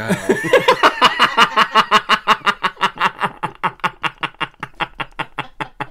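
Two men laughing hard together: a long run of quick, rhythmic ha-ha pulses, several a second, that slowly grows quieter towards the end.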